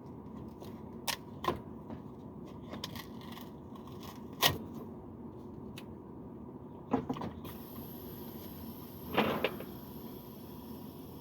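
Scattered clicks and knocks from handling metal fittings and tools while setting up a nitrogen pressure test, over a steady background hum. About seven and a half seconds in, a faint steady hiss joins.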